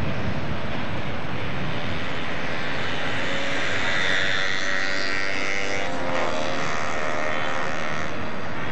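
A motor droning, growing louder toward the middle and then fading, over steady wind noise on the microphone.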